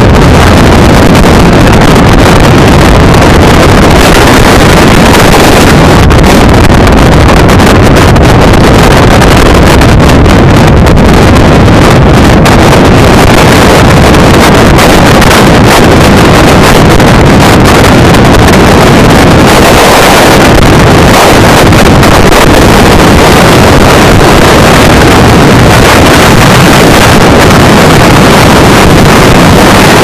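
Strong wind blowing across the microphone: a loud, unbroken rumble with no let-up.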